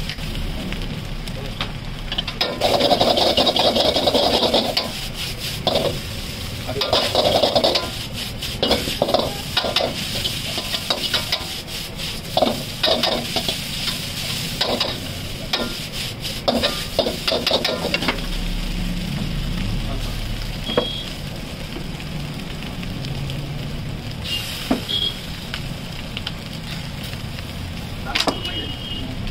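Metal ladle stirring and tossing noodles in a hot iron wok, scraping and clanking against the pan over the sizzle of frying. The clatter comes in quick runs through about the first two-thirds and then gives way to a steadier sizzle.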